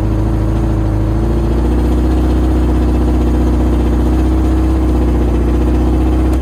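Yamaha Attak snowmobile's four-cylinder four-stroke engine idling steadily, its note deepening about a second and a half in. It is switched off and cuts out abruptly at the very end. It runs smoothly: "runs good."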